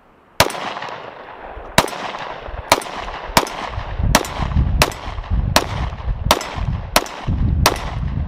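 Ten shots from a Smith & Wesson M&P M2.0 Compact 9mm pistol firing 147-grain Federal HST carry ammunition, a steady string of sharp cracks a little under a second apart, each with a short echo. The even cadence shows every round firing and cycling. A low rumble runs underneath from about halfway.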